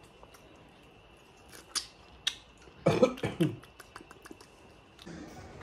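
A person coughs briefly about three seconds in, after a few faint clicks.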